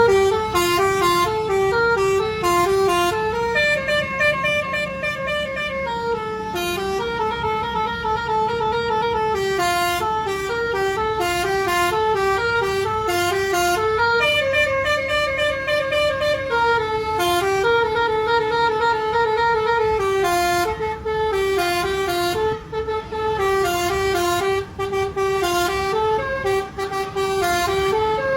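A bus's telolet multi-tone musical horn plays a long, winding tune of stepped notes without a break, over a low engine rumble.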